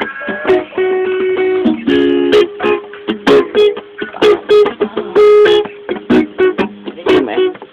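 Acoustic guitar strummed, chords struck with sharp strokes and the strings left ringing between them.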